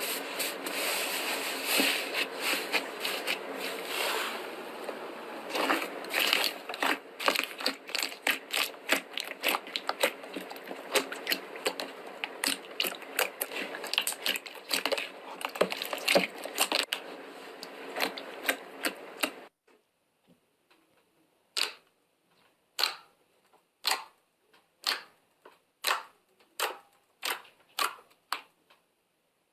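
Slime being squeezed and pressed, making dense crackling clicks and pops. About nineteen seconds in, the background hiss cuts off and the pops come singly, about one a second.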